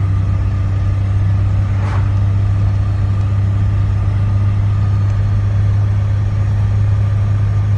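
Steady low drone of a running vehicle engine, with one brief rustle about two seconds in.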